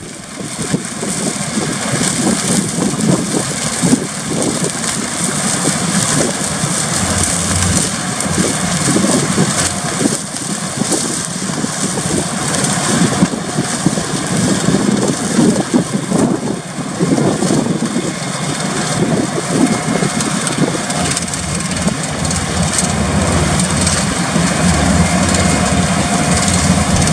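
Tractor engine and trailed potato harvester running steadily, a dense mechanical noise with wind buffeting the microphone.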